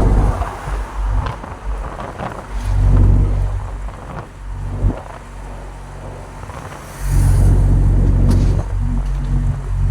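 Truck engine running, heard from inside the cab: a low drone that swells about three seconds in and rises again to stay loud from about seven seconds in. A single sharp knock about five seconds in.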